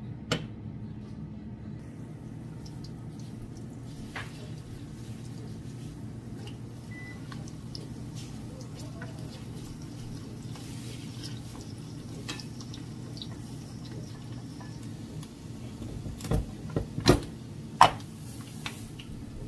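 Sliced onions sizzling in hot oil in a frying pan, stirred with a wooden spoon, with light clicks of the spoon against the pan. A few loud knocks and clatters come near the end as a plastic container of rice is handled over the pan.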